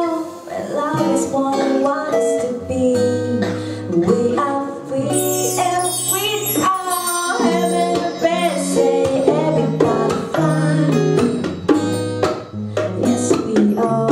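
Live acoustic band music: a woman singing over acoustic guitar and hand percussion.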